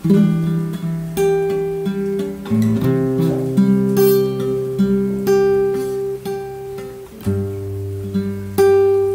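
Slow fingerpicked acoustic guitar music: single notes and chords plucked about once a second and left to ring.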